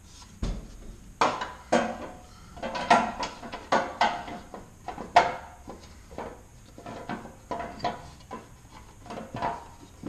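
Plastic park/turn signal light housing knocking and clicking against the bumper cover as it is worked into the opening from behind: a string of irregular knocks and clatters.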